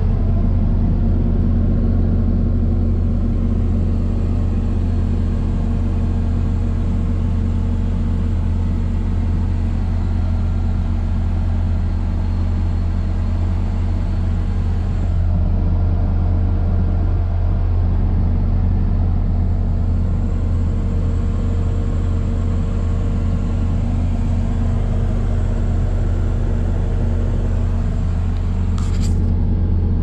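New Holland C238 skid steer's diesel engine running steadily, heard from inside the cab.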